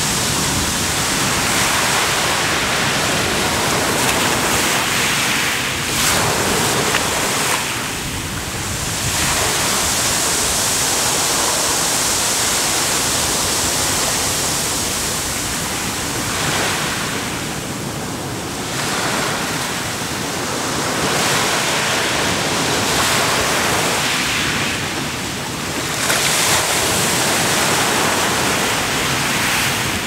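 Ocean surf breaking and washing up a coarse sandy shore: a continuous rush of water that eases and swells again several times as waves come in and draw back.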